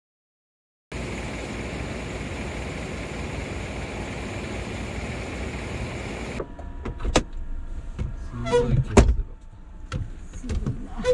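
A steady outdoor hiss for several seconds, then inside the van a cloth wiping condensation off the windscreen glass: squeaks of cloth on glass among light knocks and clicks.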